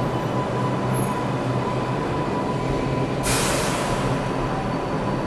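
A New York City subway train settling to a stop at a platform, with a steady rumble and a thin steady whine. About three seconds in comes a sudden loud hiss of air from its brakes, fading over about a second.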